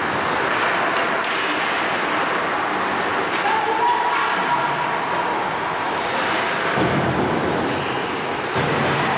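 Ice hockey game sounds in a rink: steady noise with a few sharp knocks, like sticks and skates on the ice.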